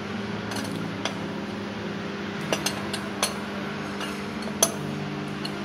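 Scattered sharp metallic clinks of a steel wrench working the bottom nut of a diesel locomotive's steel fuel filter bowl, one louder clink near the end, over a steady low hum.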